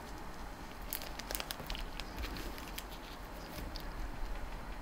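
Plastic icing piping bags crinkling and rustling in gloved hands, with a quick cluster of crinkles and small clicks about a second in, then scattered fainter ticks.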